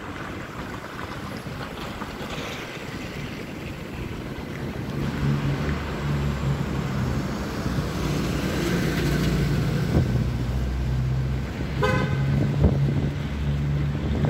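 Street traffic with a van's engine running close by, starting about five seconds in, and one short car-horn beep near the end.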